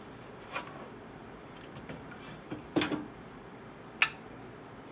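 Objects being handled and set down, giving a few knocks and clatters: a small knock about half a second in, a louder cluster of clatters around three seconds, and one sharp click about four seconds in, over steady background noise.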